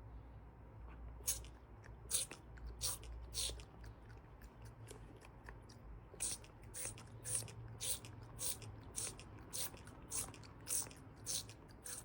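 A cat chewing crunchy food: faint, short crunches, irregular at first and then a steady two or so a second.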